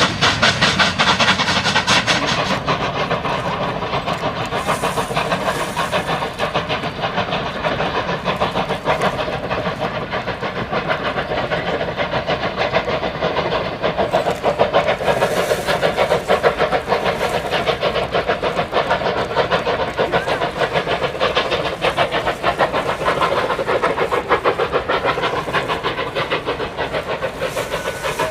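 Steam locomotive running, a rapid, even beat over a steady hiss of steam, a little louder in the first couple of seconds.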